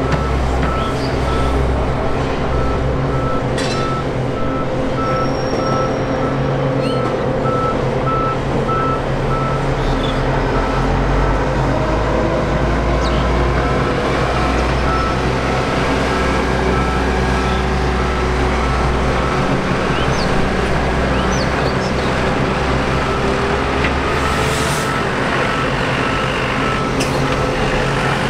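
Steady engine hum of airport apron traffic, with a rapid high beeping, typical of a ground vehicle's reversing alarm, through the first third and again near the end.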